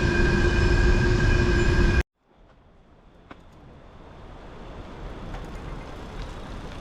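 Coal freight train passing, a loud rumble with steady ringing tones over it, cut off abruptly about two seconds in. After the cut, a faint even rushing hiss slowly grows louder.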